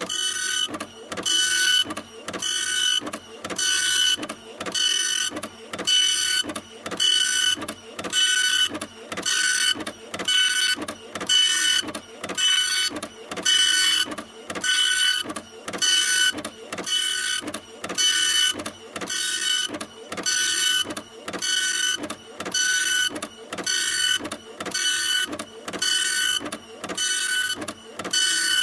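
Computer keyboard keys being typed in a steady, evenly repeating rhythm: a quick cluster of key clicks about once a second.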